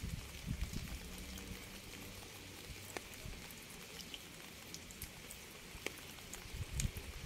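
Rain falling: a steady hiss with scattered individual drops ticking.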